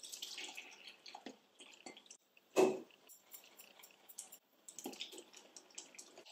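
A wire whisk stirring crêpe batter in a glass bowl as milk is poured in, in short irregular wet swishes, with one dull knock about two and a half seconds in as a plastic measuring jug is set down on a wooden table.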